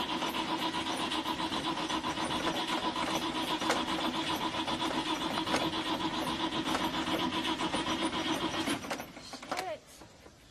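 A car's starter motor cranks the engine with a fast, steady whirr for about nine seconds. The engine does not catch, and the cranking cuts off sharply near the end, followed by a few faint clicks. The people trying to start it think the engine is flooded.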